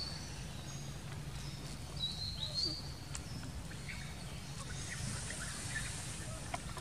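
Outdoor background: a steady low hum with a few short, high chirping calls, one near the start and a couple more about two seconds in.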